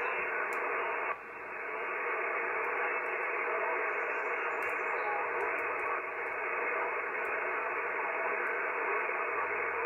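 Yaesu FT-991A transceiver on 6 m SSB hissing with steady band noise through its speaker, cut off above and below like a voice-width receiver passband, with a brief dip about a second in. A very weak station is being copied somewhere under the noise.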